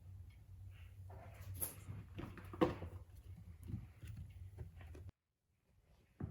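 Light, irregular thumps and taps of an American Shorthair cat's paws on the floor as it runs and plays with a ball, the hoof-like clatter of its footfalls; one louder knock comes about halfway through. The sound drops out for about half a second near the end.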